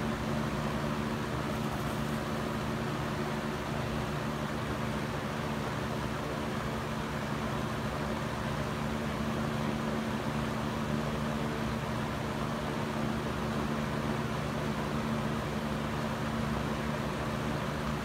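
Lakewood Model 223 box fan from the 1980s running steadily on high speed: an even rush of air over a low, steady motor hum.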